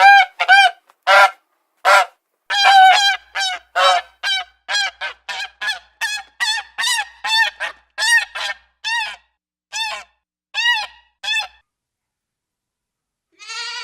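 A goose honking over and over, a long run of short nasal honks about two a second that stops some eleven seconds in. A fainter call starts near the end.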